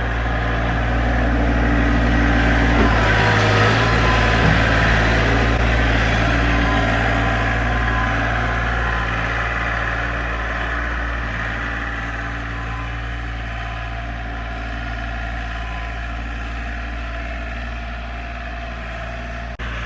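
Farm tractor engine running steadily, loudest a few seconds in and then gradually getting quieter.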